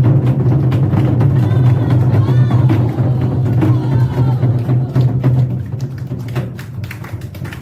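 Ensemble of Korean buk drums played in a dense, rapid roll of strikes over a deep sustained boom, easing off near the end.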